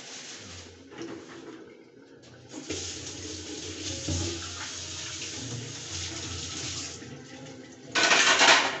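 Running water: a steady run from about three seconds in to about seven, then a short, louder gush near the end.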